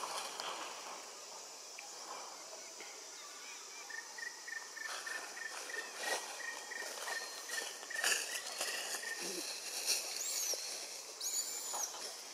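Forest ambience: a steady insect hum with a thin, steady high tone from about four to nine seconds in, scattered short rustles and clicks, and two brief, very high chirps near the end.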